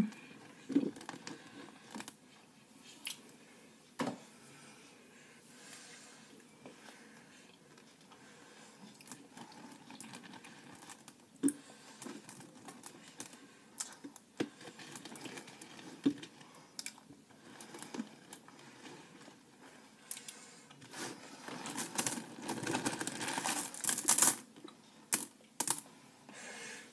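Hands in a plastic tub of whipped topping: scattered light clicks and taps, with a denser stretch of rustling and scraping near the end.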